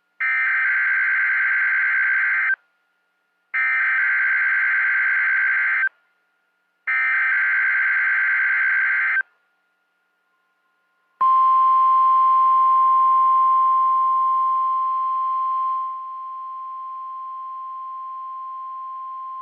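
NOAA Weather Radio Emergency Alert System test: three bursts of screeching SAME digital header tones, each about two and a half seconds with a short gap between, then the steady 1050 Hz weather radio warning alarm tone, which drops in level partway through.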